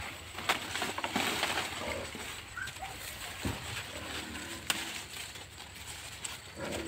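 Broad leaves being picked and handled: rustling and crackling with scattered sharp snaps of stems, and a few brief bird chirps in the background.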